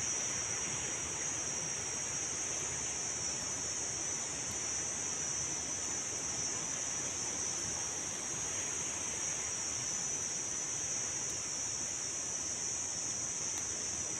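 Steady forest insect drone: a constant high buzzing that does not change, over an even background hiss.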